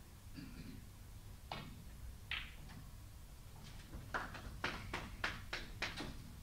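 Snooker balls clicking in a hall: single sharp cue-and-ball clicks a couple of times in the first few seconds, then a quick run of about seven clicks near the end as a shot plays out.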